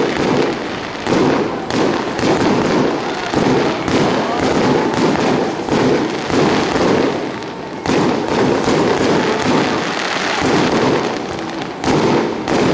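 Aerial fireworks going off in quick succession: an irregular run of sharp bangs from bursting shells, about one or two a second, with crackle between them.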